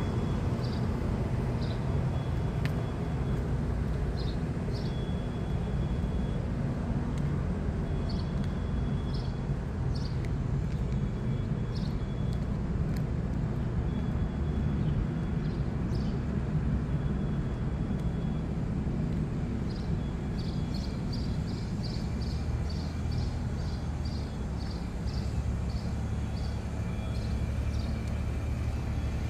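A motor or engine running steadily with a low hum. Short high chirps sound over it now and then, coming more quickly in the last third.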